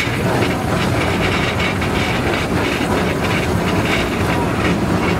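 Small steam train running along the track, heard from an open carriage behind the locomotive: a steady rumble with an irregular run of clicks and rattles from the wheels and carriage.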